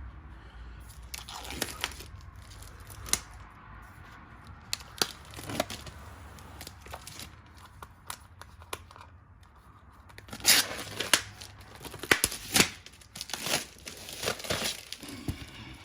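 Book packaging being torn open and crumpled by hand: irregular tearing and crinkling with sharp crackles, coming thick and fast near the end.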